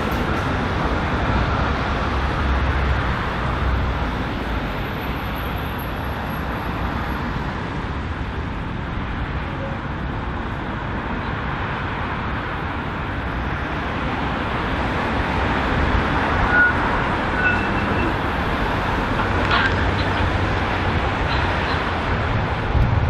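Steady road traffic noise from cars passing on a busy road, with a low rumble. Near the end a Z3-class Melbourne tram adds to it as it runs along the track toward the listener.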